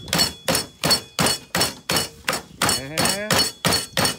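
Chicken breast being pounded flat inside a plastic bag on a table, struck with a bottle in quick, even blows, about four a second, to tenderize it.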